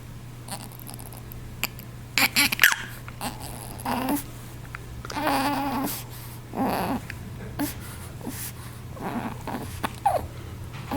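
A baby with hiccups: short hiccups and brief babbling sounds, coming one at a time every second or so.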